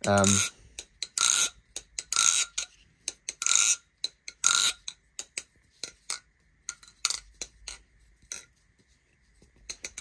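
A carbon fiber Replicant balisong (butterfly knife) being flipped: its handles clack open and shut around the freshly lubed pivots, with a louder clack about once a second and lighter ticks between, thinning out near the end.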